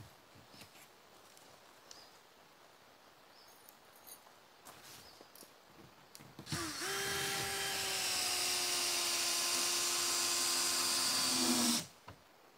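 Faint clicks and knocks of handling, then a power drill spins up about halfway through, runs steadily for about five seconds with its pitch sinking slightly, and stops abruptly.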